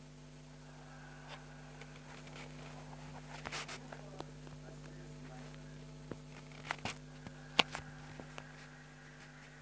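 Scattered small clicks and rustles over a steady low hum, with one sharper click near the end.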